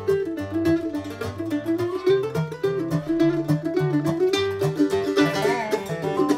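Mandolin and dobro playing a quick bluegrass instrumental together, a rapid run of plucked notes. About five seconds in, some notes slide in pitch.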